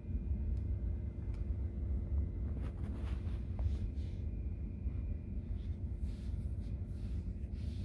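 Steady low rumble and hum inside a BMW F30's cabin with the climate-control blower running, and a few faint clicks about three seconds in.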